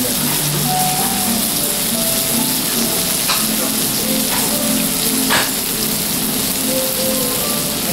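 Harami (skirt) steak sizzling steadily on a hot iron sizzle plate under a melting pat of butter, with a few sharp pops of spattering fat.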